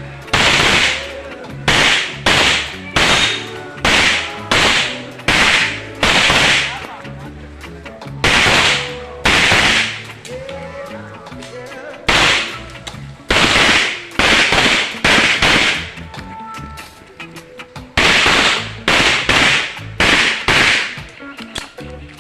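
Pistol shots fired in quick pairs and triples, about twenty in all, each a loud crack with a short ringing echo, with brief pauses between groups as the shooter moves from target to target.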